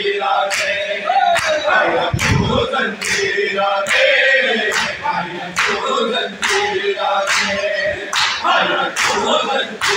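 A crowd of men chanting a noha in chorus, with sharp, even slaps about once a second from hand chest-beating (matam) keeping time.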